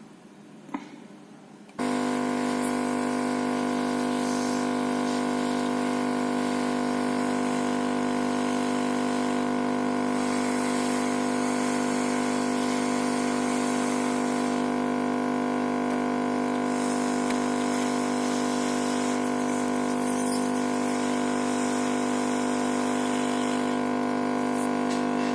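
A loud, steady electrical hum with many overtones switches on abruptly about two seconds in and holds at an unchanging pitch.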